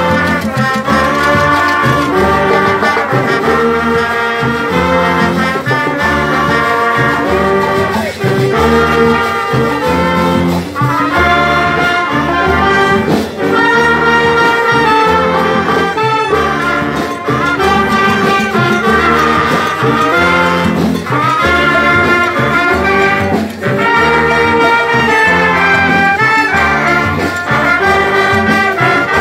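A marching band's brass and reed section playing a tune together: trumpets, trombones, saxophones and a sousaphone, over a steady beat of drums.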